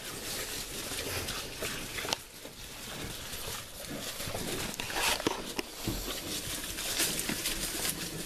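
Three-week-old piglets moving about in a straw-bedded pen: rustling straw and scattered small pig sounds, with a brief louder burst about five seconds in.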